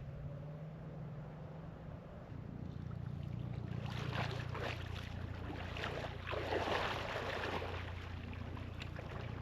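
Boat motor humming steadily, growing louder about two and a half seconds in, with a rushing noise of water and wind swelling over it midway.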